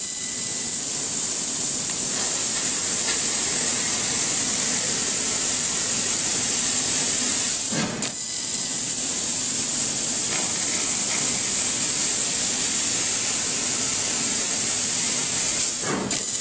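Baiwei 1000 W laser cutter cutting 6 mm stainless steel plate: a loud, steady hiss of the gas jet and spray at the cutting head. The hiss drops out briefly about halfway and again near the end.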